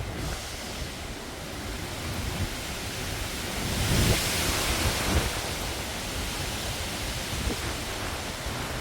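Storm wind rushing, with surf and wind buffeting the microphone. The rush swells to a louder, hissier surge about four seconds in, then eases back.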